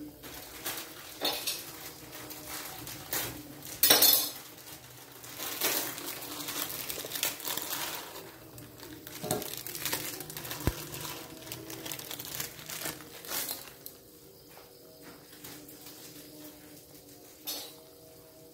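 Irregular clinks and scrapes of a metal spatula against a thin aluminium wok as a block of instant noodles goes into the broth, loudest about four seconds in. The clatter thins out after about 14 seconds, with one more clink near the end.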